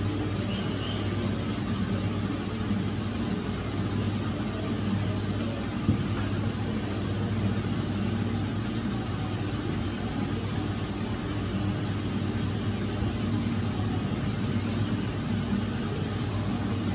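Steady low machine hum with an even, unchanging pitch, and a single light knock about six seconds in.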